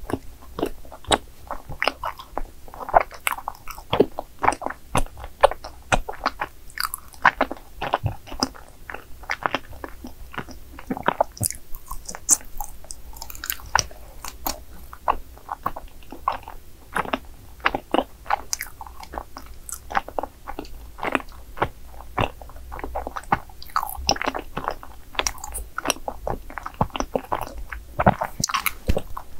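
Chewing of chewy, cream-filled rice cakes: an irregular run of short sticky mouth clicks and smacks, several a second.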